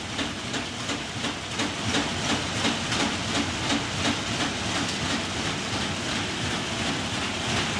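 Flat/satchel paper bag making machine running: a steady mechanical clatter with a regular knock about three times a second over a constant hum of rollers and drive.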